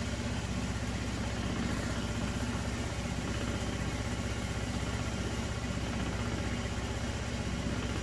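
Honda Elite 110 scooter's single-cylinder four-stroke engine idling steadily.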